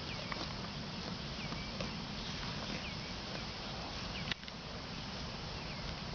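Herd of Polled Hereford heifers grazing close by: a steady noisy run of grass being torn and cropped and hooves shifting on dry pasture, with a few short chirps high above it.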